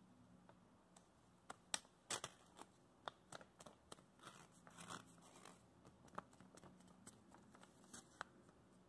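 Sheet of printer paper handled and folded diagonally in half: faint, scattered crinkles and crisp ticks as the paper is moved and creased.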